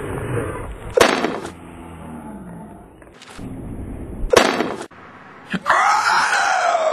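Two loud bangs about three seconds apart, then near the end a long roar-like growl that falls in pitch.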